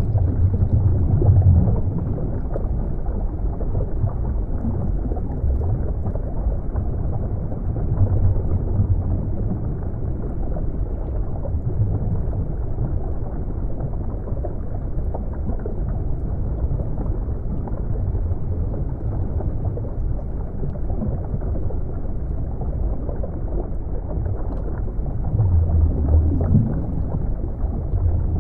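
Underwater ambience: a muffled, steady low rumble of moving water that swells a few times.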